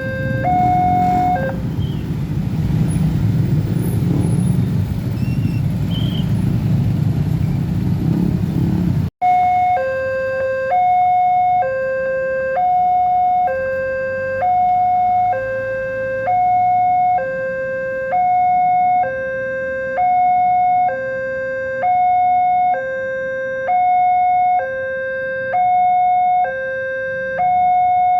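Railway level-crossing warning alarm sounding an alternating high-low two-tone signal, repeating about every two seconds. For the first nine seconds or so a loud low rumble, a train going over the crossing, nearly covers it. The rumble then cuts off abruptly and the alarm carries on alone.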